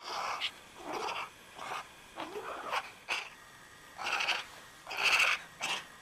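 Serval calling: a run of about nine short, breathy cat-like calls with brief gaps between them.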